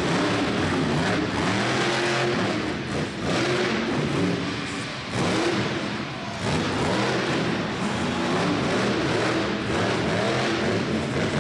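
Monster truck's supercharged V8 engine revving hard again and again, its pitch climbing and falling with each burst of throttle, with brief lifts off the throttle a few times.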